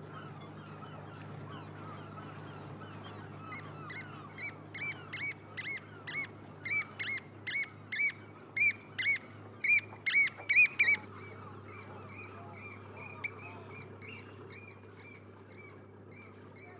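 Eurasian oystercatcher piping: a rapid run of short, shrill calls, several a second, each rising and falling in pitch. It starts about three and a half seconds in, is loudest around the middle and thins out near the end. Before the calls there is only a faint low hum and soft background chatter.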